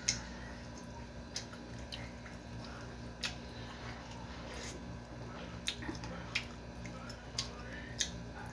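A person eating close to the microphone: wet chewing and mouth smacks, with about eight short sharp clicks scattered through, over a steady low hum.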